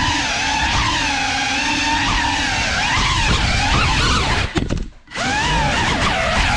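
GEPRC CineLog35 cinewhoop's brushless motors and props whining, the pitch rising and falling with the throttle. About 4.5 s in the motors cut out almost completely for about half a second, then spool back up.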